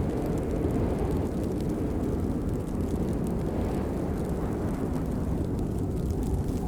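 Steady rain, a dense low rushing noise with faint scattered patter of drops on top.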